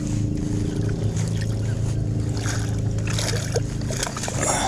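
A small fishing boat's motor running with a steady hum while a hooked fish is reeled in, and a sharp splash near the end as the fish thrashes at the surface beside the boat.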